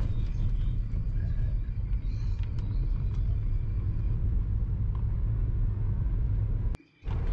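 Steady low rumble of a moving car, engine and tyres heard from inside the cabin. The sound cuts out briefly near the end.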